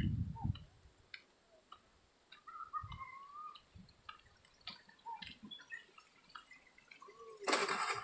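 Quiet countryside ambience: a steady high-pitched whine, scattered faint ticks and a short warbling call about two and a half seconds in, then a sudden burst of loud rustling noise near the end.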